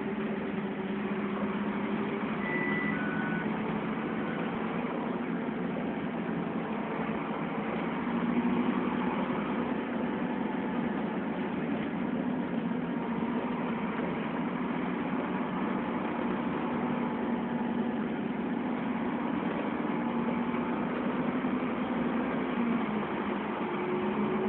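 Dennis Trident double-decker bus's diesel engine and drivetrain running as the bus drives, heard from inside on the deck: a steady drone with a whine that drifts in pitch. There are two short beeps, the second lower, about two and a half seconds in, and near the end the whine drops and a higher one rises as the bus pulls away again.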